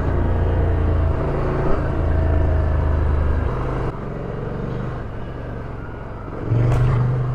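Ducati Scrambler Desert Sled's air-cooled 803 cc L-twin engine running as the bike is ridden off-road. The engine drops back about four seconds in and comes up again near the end.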